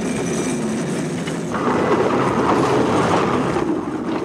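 Railroad car rolling on the rails: a steady rumble of wheels and truck that becomes fuller and brighter about a second and a half in.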